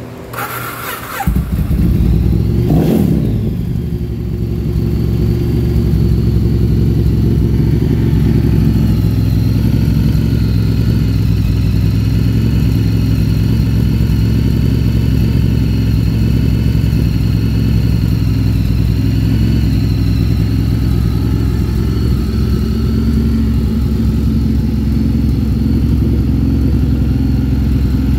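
2012 Ducati Monster 1100 EVO's air-cooled L-twin engine cranked on the starter, catching after about a second, then given one quick blip of the throttle and settling into a steady idle. The owner found it ran well but had low compression.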